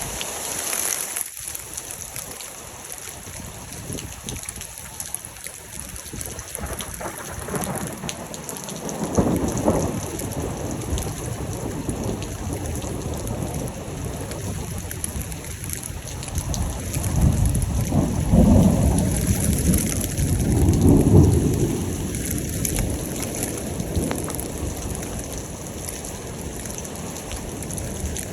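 Steady rain falling, with thunder rumbling: a shorter rumble about nine seconds in and a longer, louder rolling rumble from about seventeen to twenty-two seconds in.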